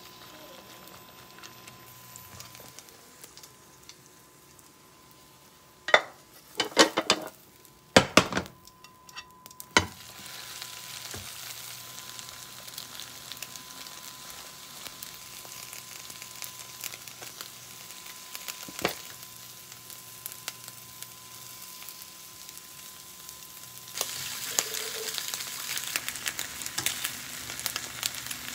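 Cabbage-and-egg pancake frying in oil in a nonstick pan. Sharp clicks of utensils against the pan come about six to ten seconds in, followed by steady sizzling that grows louder a few seconds before the end.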